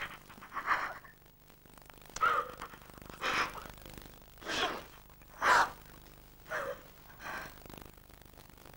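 Breathy gasps and heavy breathing of two people kissing: seven short breaths about a second apart, then they stop.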